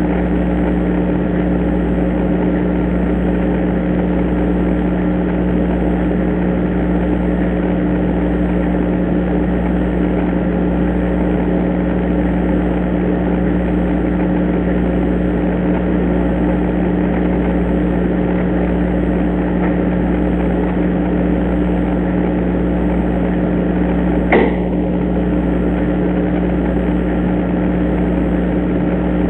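Steady mains-type electrical hum and hiss from an IP security camera's low-quality microphone, with a single sharp tap or snap late on.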